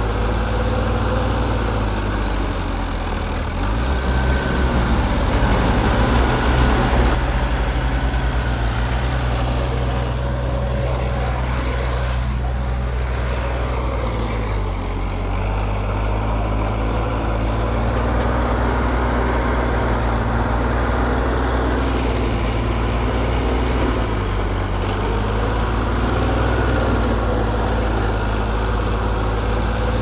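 Heavy diesel engine of a bulldozer running steadily while it works. It gets louder with the revs changing about four to seven seconds in, shifts again around the middle and near the end, and a thin high whine runs over it.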